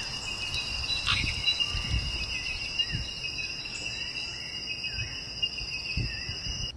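Insects trilling steadily at one high, even pitch, with a few short, faint chirps over the trill and irregular low rumbles underneath.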